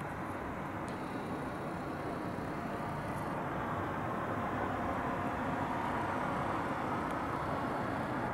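Steady outdoor city background noise, mostly distant traffic, getting a little louder midway.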